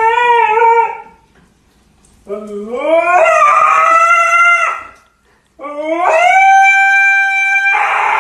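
A husky-type dog howling: three long howls, the second and third sliding up in pitch at the start and then holding steady.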